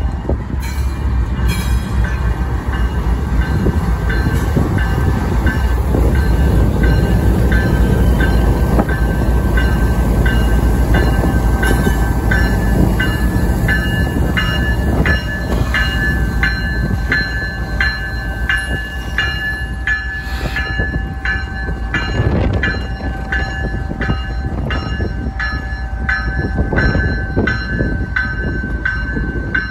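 Diesel freight locomotives rumbling past at close range. Over them a locomotive bell rings steadily, clear from about halfway through, at a little over one ring a second.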